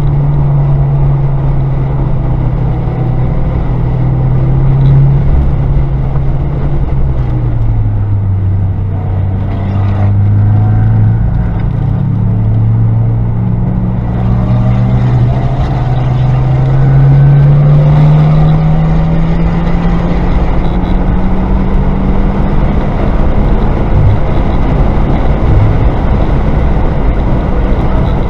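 Car engine heard from inside the cabin while lapping a race track. Its pitch drops about a quarter of the way in, then climbs steadily under acceleration for several seconds and stays high, over steady road and wind noise.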